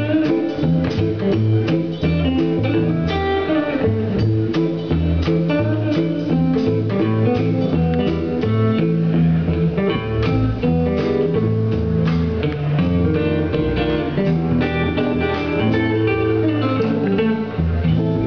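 Live band playing an instrumental: several hollow-body electric guitars picking notes and chords over a drum kit.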